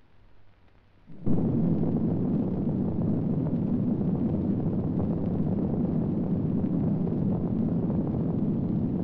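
Nuclear explosion sound effect: a sudden blast about a second in, then a steady deep rumble that carries on without a break.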